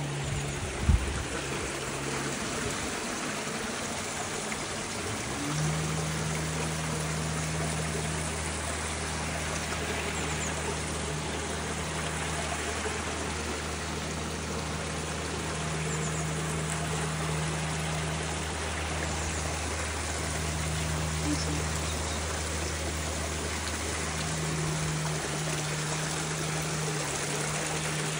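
Small stream running and trickling over stones, an even rushing of water. A steady low hum joins it about five seconds in, and there is a single sharp knock about a second in.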